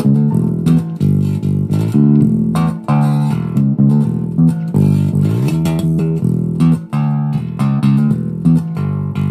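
Chinese-made Ibanez-style electric bass played fingerstyle: a continuous line of plucked notes, several a second, with a slide up in pitch about five seconds in.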